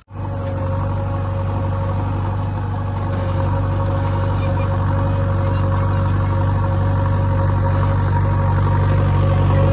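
JCB 3DX backhoe loader's diesel engine running at a steady speed. It starts abruptly and grows slightly louder toward the end.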